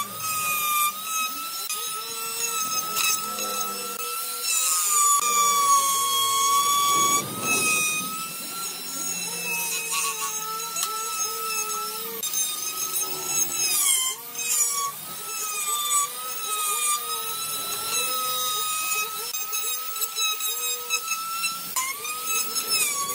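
Electric die grinder with a carving bit cutting into wood, running with a high steady whine. Its pitch dips briefly several times as the bit bites and the motor is loaded.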